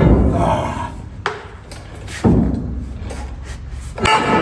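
Heavy steel hitch plate clanking as it is set into position against a truck's frame rails: three sharp metallic knocks, the last one ringing briefly.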